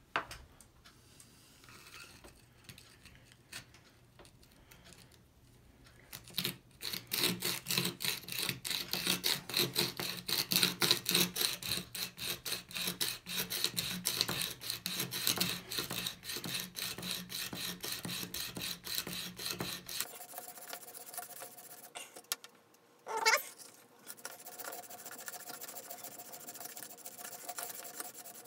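Sharpening stone on an MPOWER FastTrack Mk2 sharpener grinding the bevel of an old steel chisel, the carriage pushed rapidly back and forth along its track in steady scraping strokes. The stone is run dry on the oiled track. About twenty seconds in the strokes become softer, with one short squeak a few seconds before the end.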